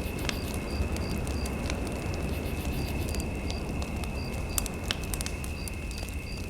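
Wood fire in a fireplace crackling with sharp pops over a low rumble. Under it runs a steady thin high electronic tone with short high beeps repeating a few times a second.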